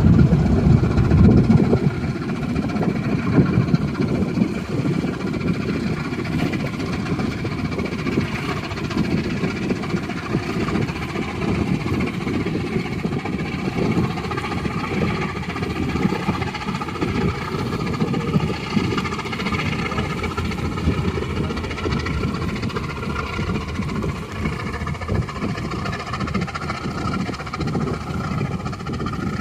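Steady low engine rumble with a faint wavering hum above it, a little louder for the first two seconds.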